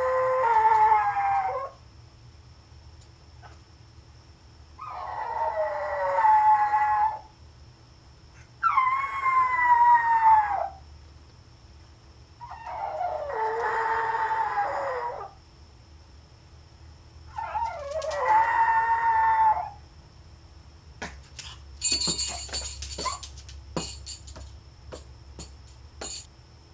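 A small Pomeranian howling while left home alone: a series of long, high howls of about two seconds each, with pauses of about two seconds between them, five in all, several sliding down in pitch. After the last howl comes a scatter of sharp clicks and rattles.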